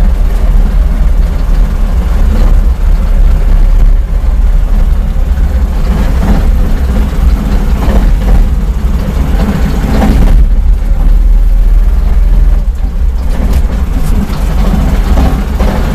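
Vehicle driving in fourth gear over a rough, washboard dirt road: a loud, steady low engine and road rumble with a few jolts and knocks from the bumps. The knock over bumps is of unknown origin; the owner suspects the driveshaft between engine and gearbox.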